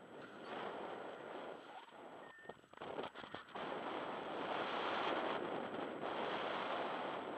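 Wind rushing over the camera microphone as a rough, gusty hiss. It breaks up briefly a little over two seconds in, then grows louder from about halfway.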